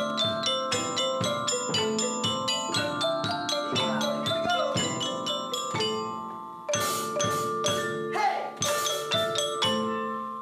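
Percussion ensemble playing a tune on mallet instruments: xylophones, marimbas and glockenspiel, in steady struck, ringing notes. The notes thin out and fade about six seconds in, then come back with stronger strikes.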